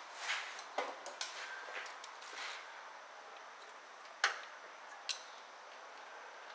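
Light metal clicks and scrapes of a cotter pin being fitted into a castle nut on the steering linkage. The clicks are clustered at first, then come two sharp single clicks about a second apart.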